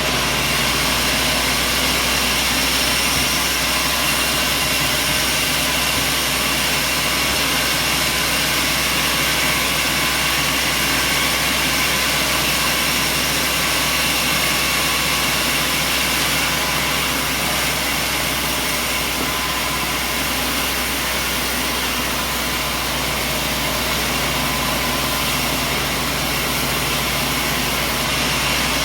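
An engine running steadily at an even pitch and level, with a constant whine over a rushing mechanical noise.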